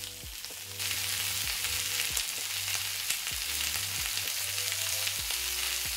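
Bone-in pork chops searing in avocado oil in a hot cast iron skillet: a steady frying sizzle that gets louder a little under a second in.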